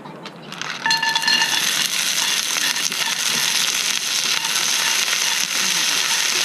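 Food hitting a hot pan and starting to sizzle loudly about a second in, with a brief metallic ring from the pan as it goes on; a steady crackling sizzle follows.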